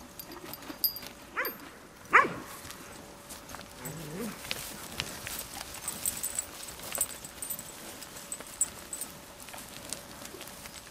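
Cows close up: scattered clicks and rustles, with a short low grunt about four seconds in. The loudest sound is a brief, sharp, high call that rises and falls about two seconds in.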